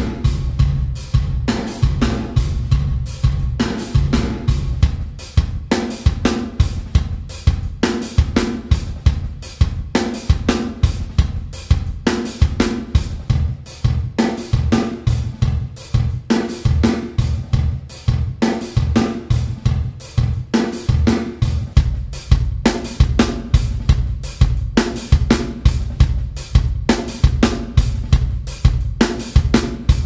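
Drum-kit loop of kick, snare, hi-hat and cymbals playing a steady beat of about four hits a second, run through the D16 Group Spacerek plugin reverb with its preset switched from Front Row to Gallery to Grey Area partway through.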